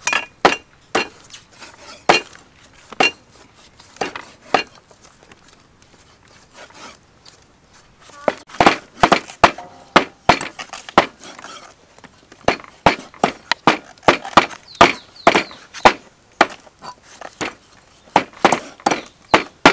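Knife and meat cleaver striking thick wooden chopping blocks as tomatoes are sliced and raw meat is chopped: scattered single knocks at first, then from about eight seconds in a fast run of chops, several a second.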